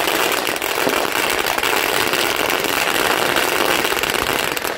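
A ground firework burning: a loud, steady spraying hiss with fine crackle, dying away near the end.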